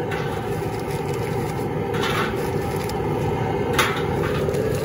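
Steady roar of a propane boil burner, with a couple of short knocks as corn cobs are dropped into a perforated stainless-steel boil basket, about two seconds in and again near the end.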